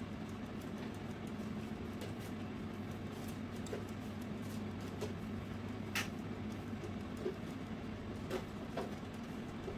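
Tefal air fryer running: a steady fan-motor hum, with a few scattered short clicks and ticks, the sharpest about six seconds in.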